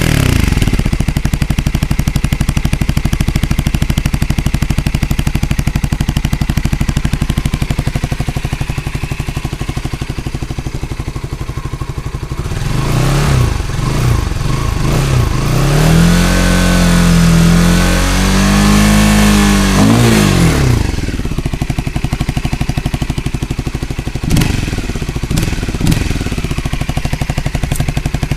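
Honda CBR125R's single-cylinder four-stroke engine, with the air snorkel removed and the stock exhaust slightly modified, idling steadily. About halfway through it is revved up, held for a few seconds and falls back to idle, with a couple of short throttle blips near the end.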